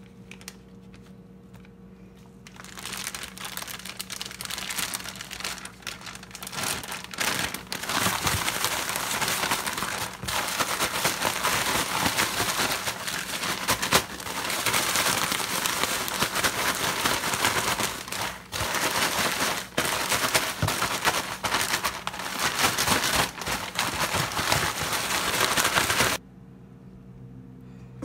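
Plastic zip-top bag crinkling and rustling as shrimp are shaken in crushed butter crackers to coat them. The shaking starts about two seconds in, gets louder, and cuts off abruptly near the end.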